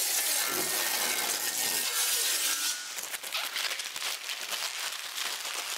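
Plastic protective film crinkling and rustling as it is pulled off the rim of a forged alloy wheel. It is densest for about the first three seconds, then thins to lighter crinkles and small ticks.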